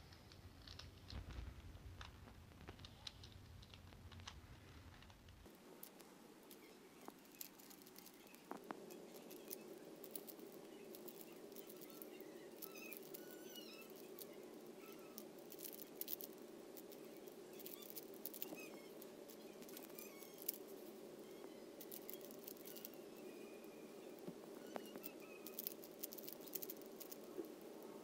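Faint, quick plastic clicking of a stickerless Rubik's cube as its layers are turned by hand, in irregular runs of clicks.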